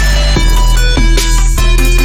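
Electronic music with a heavy, steady bass and a regular beat.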